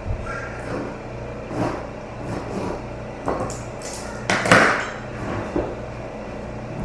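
Pots, pans and utensils clattering and knocking irregularly over a steady hum, the loudest clatter about four and a half seconds in.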